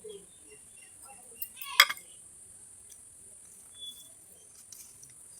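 Close-up eating sounds of a person eating a rice meal: faint chewing and mouth noises, with one sharp click about two seconds in.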